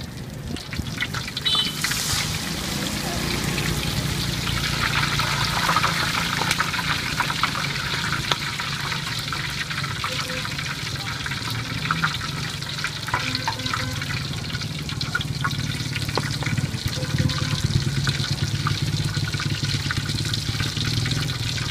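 Battered fritters deep-frying in a pan of hot oil, a dense steady sizzle and crackle, with scattered light ticks of a metal spatula and tongs against the pan and a low steady hum underneath.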